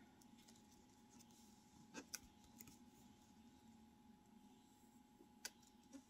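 Near silence: room tone with a faint steady hum and a few faint short ticks, around two seconds in and again near the end.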